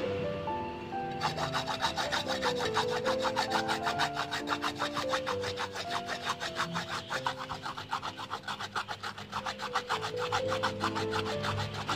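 A carrot being grated by hand on a metal grater: quick rhythmic scraping strokes that start about a second in.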